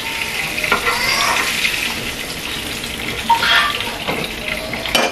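Hot oil sizzling in a frying pan as flour-coated hake fillets are briefly seared. A metal slotted spatula scrapes and knocks a few times as the last fillet is lifted out.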